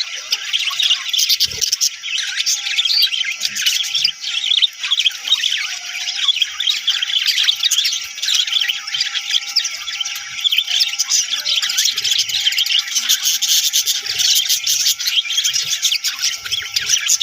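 A flock of budgerigars chirping and chattering without pause, many short, high calls overlapping.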